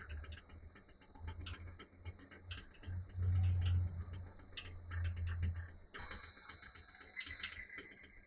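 Boxford lathe running with a steady hum and a rapid, uneven ticking, while a small threaded union is faced and chamfered in the chuck. About six seconds in the sound turns brighter as the tool cuts.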